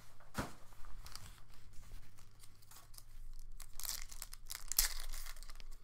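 The foil wrapper of a football trading-card pack being torn open and crinkled by hand, in several short, irregular bursts.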